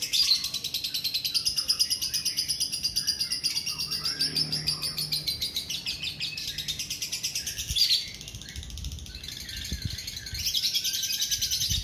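Caged lovebird ngekek: a fast, unbroken run of high chattering chirps for about eight seconds, then a short break and a second run near the end.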